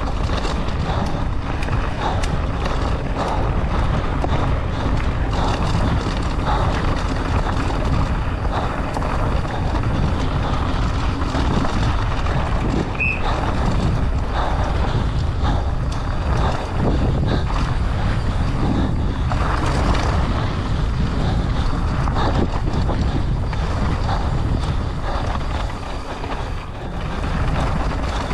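Mountain bike descending fast on a dirt trail: wind buffeting the microphone, tyres rolling over dirt and rock, and many small clatters and knocks from the bike over bumps, easing briefly near the end.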